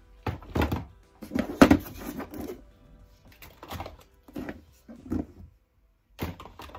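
Plastic cosmetic tubes, pots and bottles being picked up and knocked about in the bottom of an IKEA Alex drawer: a series of light knocks and rattles, the loudest about a second and a half in.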